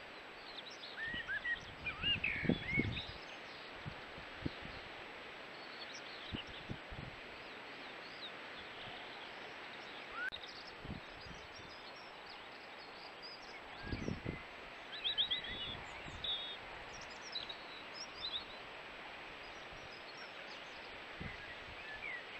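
Open-field ambience: a steady background hiss with scattered bird chirps and calls, in two busier spells, one near the start and one a little past the middle, which includes a quick run of repeated high notes. A few low thumps are heard.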